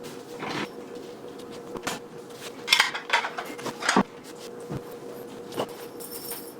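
Dishes and cutlery clinking and knocking as a dishwasher is unloaded, a scatter of separate clinks that are loudest about three and four seconds in, over a faint steady hum.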